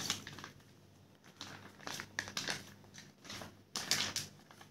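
Plastic fish bags crinkling and rustling as they are handled, in irregular bursts, the loudest near the end.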